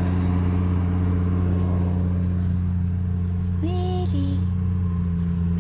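Car engine running at a steady, unchanging speed. About two-thirds of the way through, a brief pitched sound steps from a higher note to a lower one.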